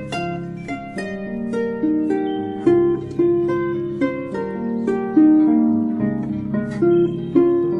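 Calm instrumental music on a harp-like plucked string instrument: a slow melody of single plucked notes, each ringing and fading, over lower sustained notes.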